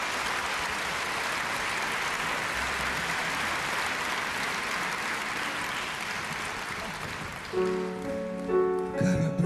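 Audience applauding, the clapping thinning out over several seconds. About seven and a half seconds in, the band's instrumental introduction to a duet begins.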